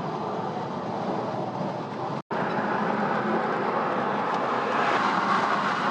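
Steady road and engine noise of a car driving at speed, heard from inside the cabin. It cuts out for an instant about two seconds in, then carries on.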